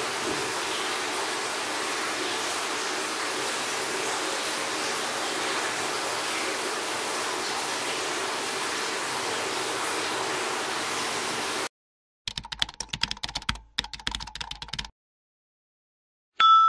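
A steady hiss that cuts off suddenly about twelve seconds in. Then come two short runs of quick keyboard-like typing clicks, and a bright bell ding starts right at the end.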